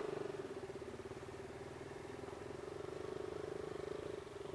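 Motorcycle engine idling steadily, an even, low-level throb.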